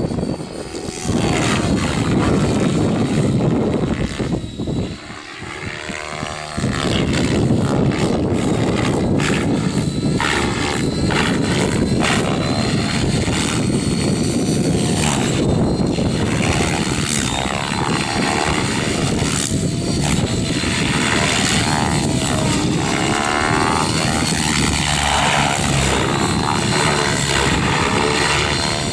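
700-size radio-controlled helicopter, converted from nitro to electric, flying aerobatics: a steady rotor-blade swish with a high whine, swelling and fading as it swoops past, dropping quieter about a second in and again from about four to six and a half seconds in.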